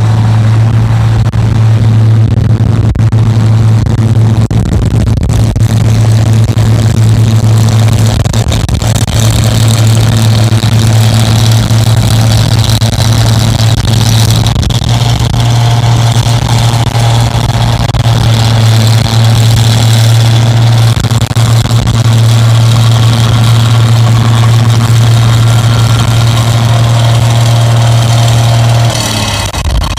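Rice combine harvester's engine running loudly at a steady speed. A higher whine joins about halfway through, and the engine note drops away just before the end.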